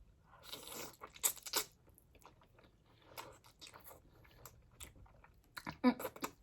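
A person biting and chewing a mouthful of spicy noodles topped with crushed Hot Cheetos, with a crisp crackle of crunches, the sharpest about a second and a half in. Near the end there is a short vocal sound.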